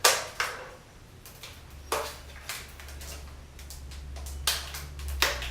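Short plastic knocks and clicks from hair dryers being handled and set down, about half a dozen spread over several seconds, over a faint low hum.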